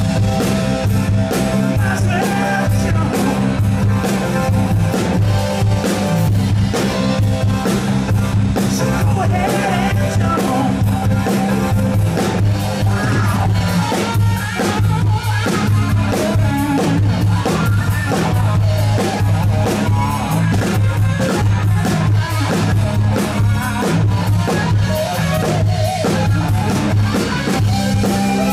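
Rock band playing live: drum kit hitting a steady beat under guitar and sustained low bass notes, with some singing.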